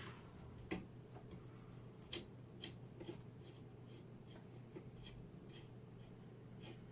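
Faint, irregular clicks and light knocks of a microphone boom arm being handled and adjusted, over a steady low hum.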